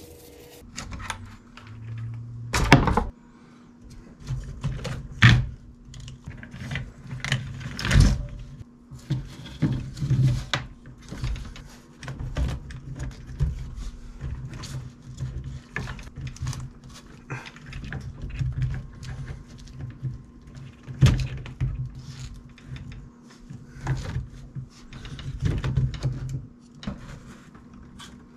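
Plastic RC car chassis and suspension parts being handled and set down on a workbench: irregular clicks, rattles and knocks, with a few louder thunks. A faint steady hum sits underneath.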